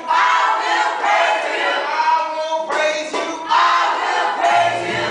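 A group of voices shouting and whooping together, with long high held yells. About four and a half seconds in, low steady notes of a song come in beneath them.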